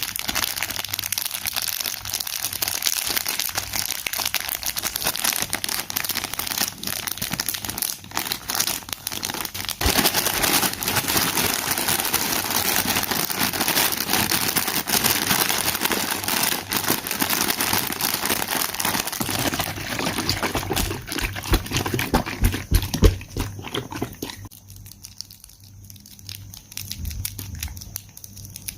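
Close-up crunching and crinkling food sounds: a dense, continuous crackle of many small clicks, easing off about 24 seconds in and picking up again near the end.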